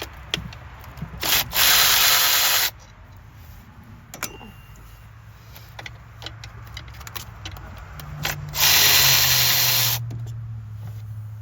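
Milwaukee M12 Fuel 3/8-inch cordless ratchet running twice, about a second and a half each time, backing out 10 mm coil pack bolts. Light clicks and knocks of tools come in between.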